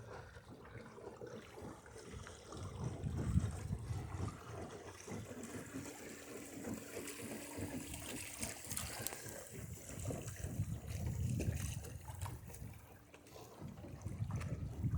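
Water trickling and gurgling against the hull of a small sailboat moving slowly in light wind.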